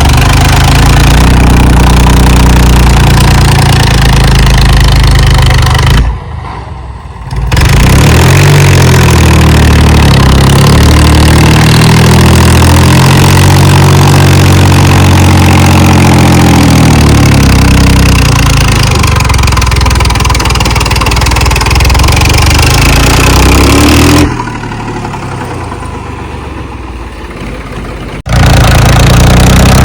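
HMT tractor's diesel engine running loud, its pitch rising and falling as the revs change. It drops abruptly to a quieter level about six seconds in and for several seconds near the end.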